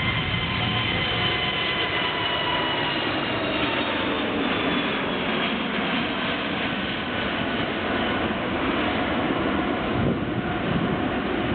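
Airbus A380's four Rolls-Royce Trent 900 turbofans at takeoff thrust: a steady jet roar with whining tones that slowly fall in pitch over the first few seconds, then give way to the roar alone.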